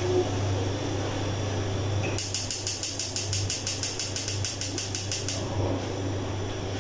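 Gas stove's electric burner igniter clicking rapidly while the knob is held turned to light the burner, about seven clicks a second for roughly three seconds.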